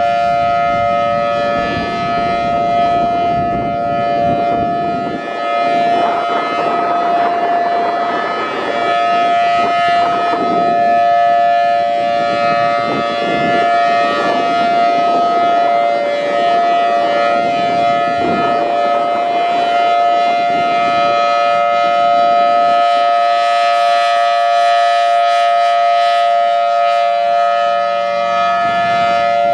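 Federal Signal Thunderbolt 1000T outdoor warning siren sounding its steady Alert signal, a held two-note chord that does not rise or fall. Heavy wind buffets the microphone, easing after about twenty seconds.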